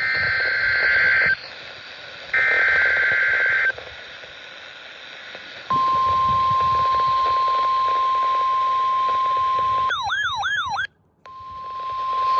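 NOAA Weather Radio test over a radio: two buzzy, screeching bursts of the EAS/SAME digital header, then the steady 1050 Hz warning alarm tone. About ten seconds in, a short warbling, sweeping tone and a brief dropout interrupt the steady tone before it resumes.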